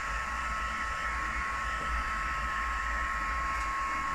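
Craft heat gun running steadily, blowing hot air to dry the paint on a glass jar: an even rush of air with a constant high whine.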